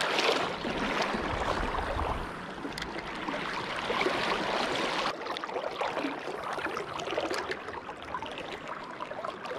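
River water flowing and rippling around a wading angler, a steady rushing hiss, with a low rumble in the first couple of seconds.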